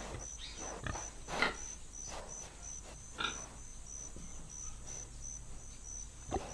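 Domestic pig giving several short grunts, the loudest about a second and a half in, with a faint regular high ticking behind them.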